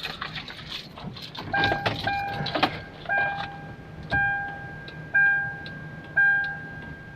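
Car keys jangling as the key goes into a 2009 Kia Sedona's ignition. From about a second and a half in, a dashboard beep sounds about once a second, each with a click, as the turn signal is tested with a new bulb.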